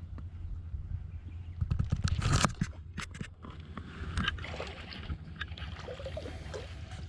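Water splashing and sloshing, loudest about two seconds in, over a steady low hum.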